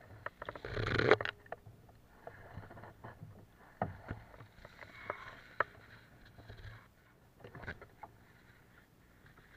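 Water slapping against a small inflatable boat, with scattered knocks and clicks as the angler shifts and handles his fishing rod, and one louder noisy burst about a second in.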